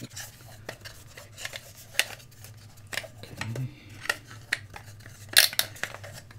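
Irregular clicks, taps and clacks of hard plastic being handled on a desk as LED electronics are pushed into a 3D-printed plastic star, with the loudest clack about five seconds in. A low steady hum runs underneath.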